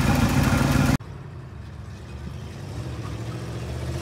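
1968 Chevy C30 tow truck's V8 engine idling, heard up close under the open hood. About a second in, a cut drops the level sharply: the same truck's engine is heard from down the street, growing louder as it comes nearer.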